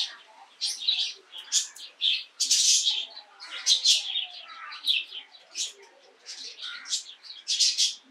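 Small birds chirping, many short high chirps in quick irregular succession.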